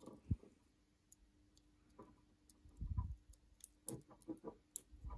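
Faint scattered clicks and soft handling knocks from fingers working a thin hookup wire into a hole in a push-pull potentiometer's switch lug, over a faint steady hum.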